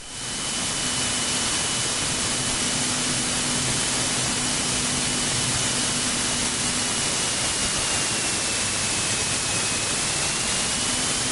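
Steady hiss over the aircraft's radio/intercom audio feed, with a faint thin whine that wavers slightly in pitch. It comes in suddenly as the radio speech stops.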